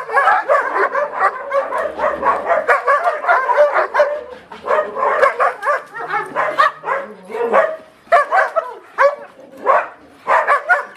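Dogs barking aggressively in a rapid, near-continuous string of barks and yelps, with brief lulls: guard dogs in aggression training.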